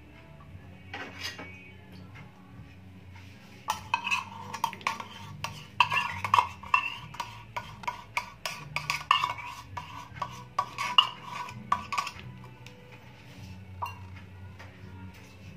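A metal spoon clinking and scraping against metal cookware in quick, irregular strokes as the liquid is stirred and worked. The strokes begin about four seconds in and stop about twelve seconds in.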